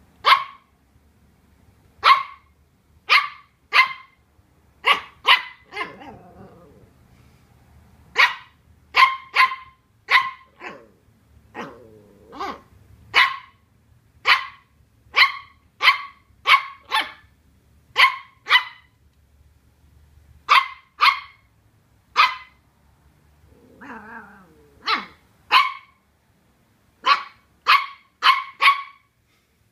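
Welsh Terrier puppy barking sharp, high barks at a cardboard box that frightens it, about one a second and often in quick pairs, with a few low growls between.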